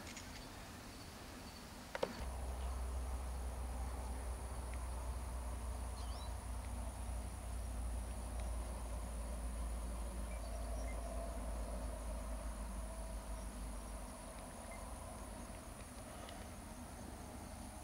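A steady high insect chirring, with a single click about two seconds in, then a steady low rumble that eases near the end.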